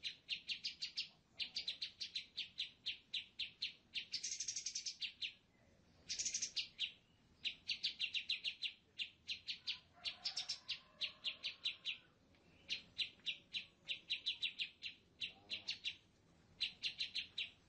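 Birdsong: rapid trills of repeated high chirps, in phrases of about a second with short pauses between them.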